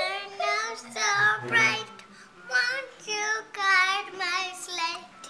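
A young boy singing alone, in several short phrases with brief pauses between them.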